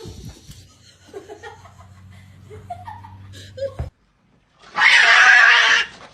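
Animal cries: short gliding calls at first, then a loud, harsh, rasping cry lasting about a second near the end.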